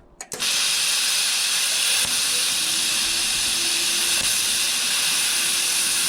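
Plasma cutter, set to 30 amps, cutting into 5/8-inch steel plate: a click, then a loud, steady hiss of the arc and air jet starting almost half a second in.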